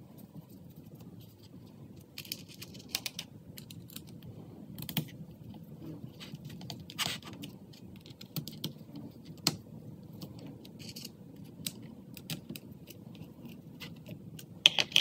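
A hand screwdriver driving small screws into a mirror's backing panel, with scattered light clicks and taps as the screws, screwdriver and panel are handled.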